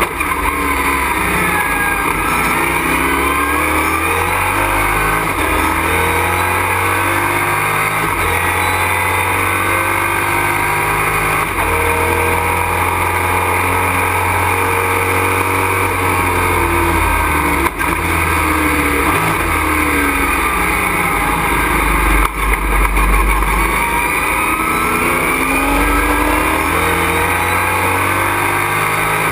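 Race truck engine at racing speed, heard from inside the cockpit, its revs climbing and falling again and again through upshifts and downshifts. A sharp knock comes partway through, and a burst of low rumble follows a few seconds later.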